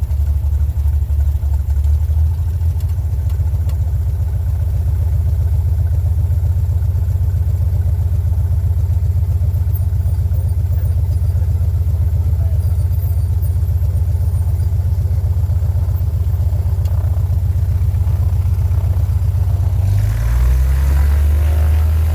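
Small airplane's piston engine running with a steady, deep drone. About 20 seconds in, the engine note shifts lower and a louder, wider rumble comes in.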